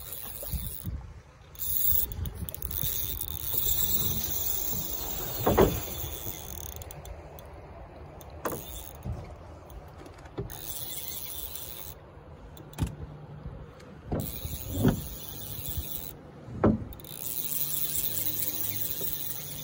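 Fly reel's ratcheting drag buzzing in stretches of a few seconds while a hooked steelhead is played on a bent fly rod. Several short thumps from handling the rod and reel break in between.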